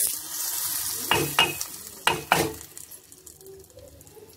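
Hot-oil tempering of mustard seeds and curry leaves sizzling as it hits the buttermilk curry, the hiss dying away within about a second. Then four sharp metal clinks of the small pan against the steel pot.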